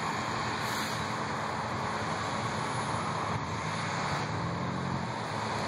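Road traffic of cars, pickup trucks and school buses passing slowly: a steady mix of engine hum and tyre noise, the low engine hum swelling for a moment a little past the middle.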